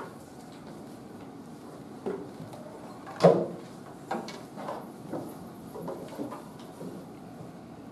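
Scattered knocks and bumps of students settling on chairs and handling their ukuleles, with one loud knock about three seconds in and smaller ones spread after it.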